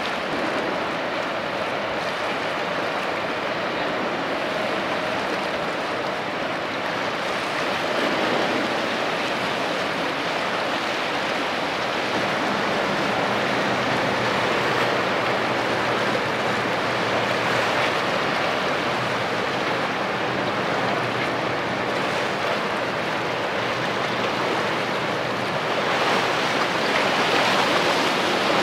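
Sea water washing and splashing with wind buffeting the microphone, over a faint low steady hum. It grows louder about two seconds before the end.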